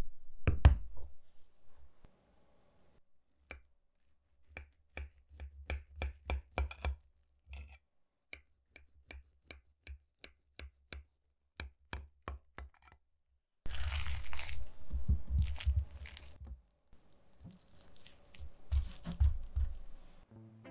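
A knife cutting a baked, cheese-topped cabbage casserole in a glass baking dish. A knock comes near the start, then a run of sharp, crisp ticks as the blade cuts through the browned crust. Two longer scraping, tearing stretches follow as a wedge is pried loose and lifted out.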